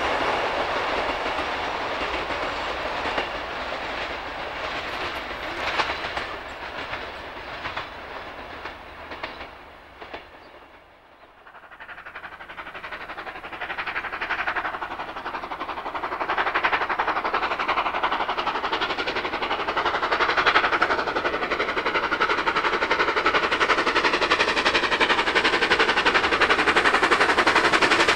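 NSW C38 class 4-6-2 steam locomotive 3801 working a passenger train. Its sound fades away into the distance and dies out about ten seconds in. After a short gap the train is heard again approaching, growing steadily louder.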